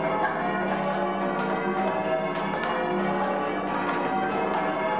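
A ring of eight church bells rung full-circle by ringers on ropes: one stroke follows another in a steady stream, each bell's tone ringing on under the next, heard from the ringing chamber below the belfry.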